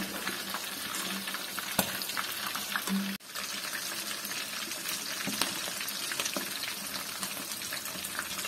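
Chicken leg pieces frying in hot oil in a wok: a steady sizzle dotted with many small crackles and pops.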